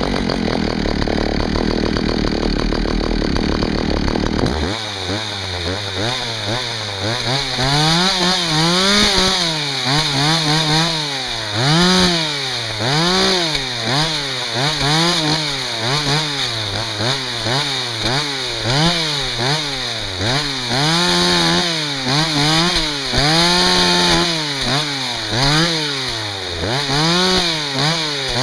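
Two-stroke chainsaw running, rough and low for the first few seconds, then revved up and down over and over, about once a second, as it cuts through firewood.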